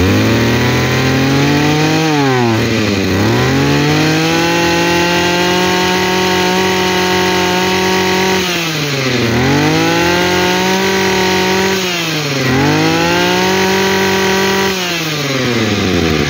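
Tanaka 22cc two-stroke brush cutter engine being revved: it climbs from idle to full throttle, holds high for a few seconds, and drops back three times before settling down near the end. It runs very smoothly.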